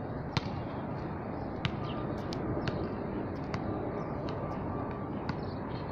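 Basketballs bouncing on a hard outdoor court: sharp, irregular knocks about half a second to a second apart, the loudest about half a second in, over a steady background hiss.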